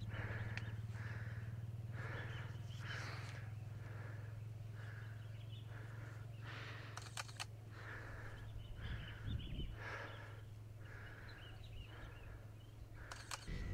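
A wild animal calling with short, evenly repeated notes, about three every two seconds, over a steady low hum. A few sharp clicks come about seven seconds in.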